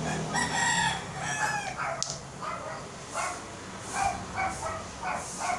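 A rooster crows, a long call lasting about a second and a half. About two seconds in there is a single sharp click of a billiard ball being struck on the tabletop table, followed by a run of short calls.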